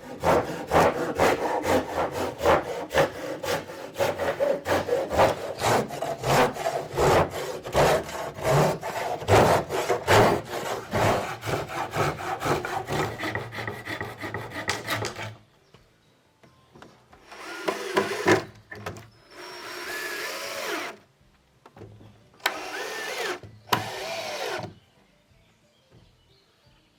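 Hand saw cutting through wood in fast, even strokes for about fifteen seconds, then a few shorter bouts of sawing or rubbing on wood with squeaky glides in them.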